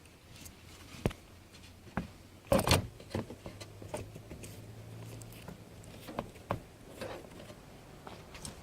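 Scattered light clicks and knocks of hands fitting a car's windshield wiper arm, the loudest a cluster of knocks about two and a half seconds in. A faint low hum runs through the middle.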